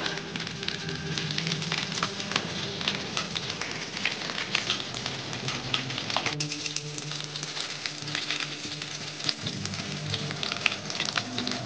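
Chicken pieces frying in hot oil in a non-stick pan, sizzling with a dense crackle of small pops. Background music plays underneath.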